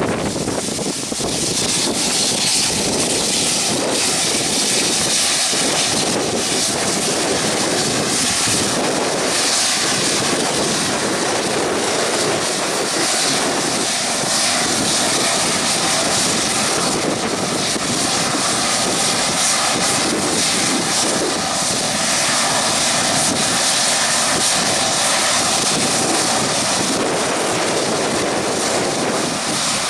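Boeing 777-212's twin jet engines running at low taxi power as the airliner turns slowly on the runway: a steady, loud hissing engine noise that holds level throughout.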